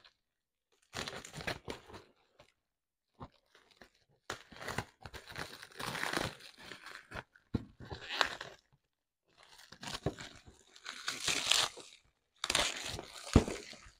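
Plastic bubble wrap crinkling and tearing in irregular bursts as it is cut with scissors and pulled off a boxed blender.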